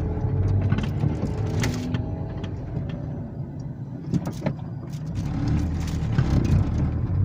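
Car driving, with low engine and road rumble heard from inside the vehicle and a few light knocks.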